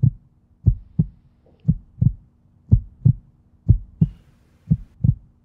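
Heartbeat sound effect: pairs of low thumps, lub-dub, repeating steadily about once a second.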